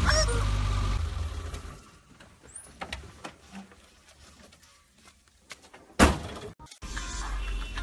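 A car door slammed shut once, a sharp loud bang about six seconds in. Before it, a low rumble fades out within the first two seconds, followed by a few faint knocks and clicks.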